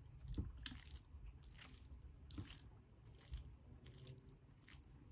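Faint chewing of food, with a few soft crunches scattered through.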